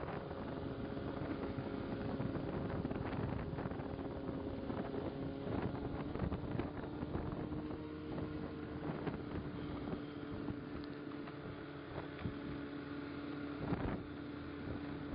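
A steady low motor hum under wind noise on the microphone, with scattered sharp clicks and crunches.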